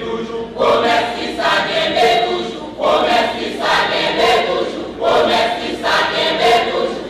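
Church choir singing in short phrases, each starting with a sharp, loud entry.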